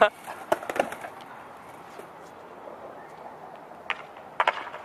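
A brief vocal shout right at the start, then a few sharp clicks and knocks scattered over steady background noise.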